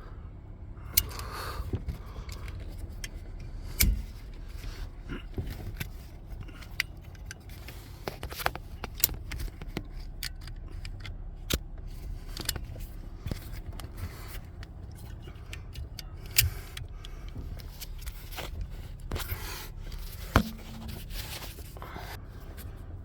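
Ratchet straps being undone: scattered metallic clicks, knocks and jingles from the ratchet buckles and hooks, with strap webbing scraping, over a low steady rumble. A few sharper knocks stand out, about four seconds in, after sixteen seconds and after twenty seconds.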